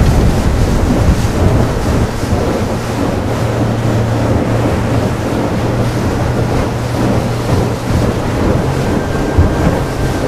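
Wind buffeting the microphone and water rushing and slapping along the hull of a small boat running wide open through light chop. The boat is driven by a Flux Marine FM115 electric outboard, which is almost dead-quiet, so wind and water carry the sound.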